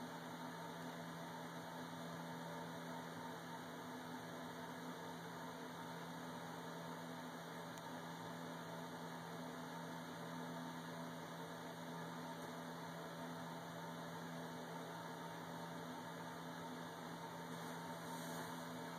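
Steady low hum with hiss and no distinct events: background noise.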